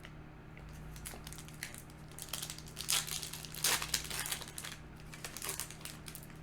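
Foil booster-pack wrapper crinkling and being torn open, a string of short rustling bursts that are loudest around the middle.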